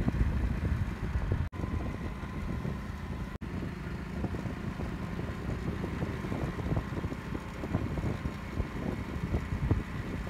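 Hero motorcycle engine running steadily while riding, heard from the rider's seat with wind rumbling on the microphone. The sound cuts out for an instant twice, about a second and a half and three and a half seconds in.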